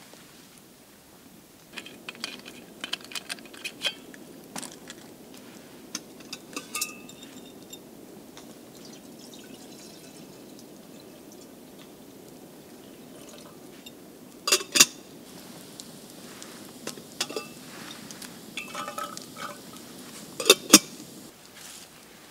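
Camp cookware and utensils clinking and knocking now and then over a steady low rushing sound. The loudest are two sharp double knocks, one about two-thirds through and one near the end.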